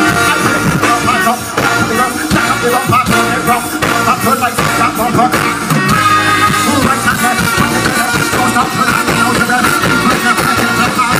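Live soca band music with a lead vocal, played loud over a stage sound system and heard from the crowd.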